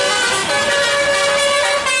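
Bus 'telolet' musical air horn playing a tune: a run of pitched horn notes, with one note held for about a second in the middle before the tune moves on.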